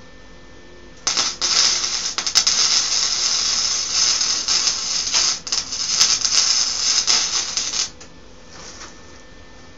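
Electric arc welding: a loud, dense crackle that starts about a second in, runs for about seven seconds with a brief break, and stops.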